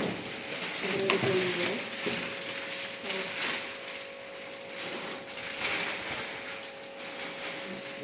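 A steady electrical hum with scattered clicks and rustles of handling, and a few faint voices.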